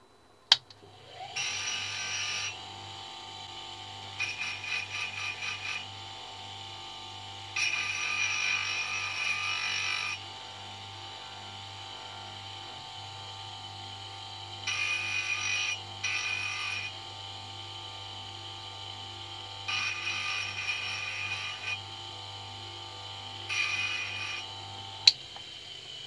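Bench grinder motor running with a steady hum, starting just after a click. A small brass part is pressed against its sanding disc several times, each time giving a gritty rasp of one to two seconds over the hum. A sharp click comes about a second before the end.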